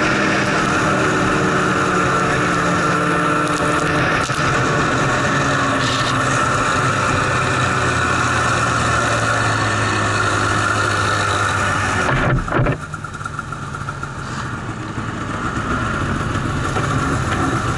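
Snowmobile engine running steadily under throttle, heard from the rider's seat. About twelve seconds in there is a short knock and the engine drops back, quieter for a few seconds as the sled slows, then it picks up again.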